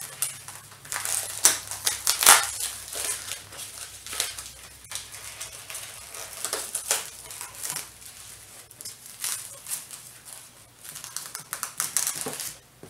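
Steak packaging crinkling and rustling in irregular crackles as it is worked open.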